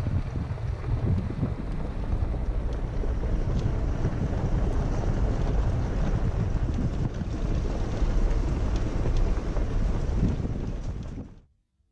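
Wind buffeting the microphone and low road rumble from a Toyota 4Runner driving along a back road, a steady noise that cuts off abruptly near the end.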